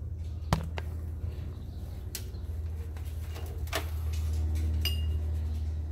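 Metal parts and tools being handled: a sharp knock about half a second in, a few lighter clicks, a short scrape, and a brief metallic clink near the end, over a steady low hum.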